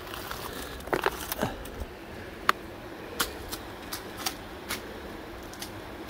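Footsteps crunching on loose shale and dry leaves on a steep slope: a string of irregular sharp clicks and crackles, the sharpest about two and a half seconds in.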